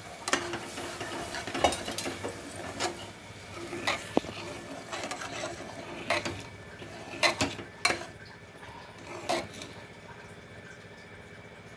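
Steel ladle stirring boiled chickpeas into a thick masala gravy in a pressure cooker, scraping through the food and knocking against the sides of the pot every second or so.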